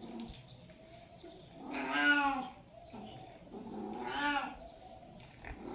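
Domestic cats yowling while mating: two drawn-out, wavering calls about two seconds apart, the first the louder.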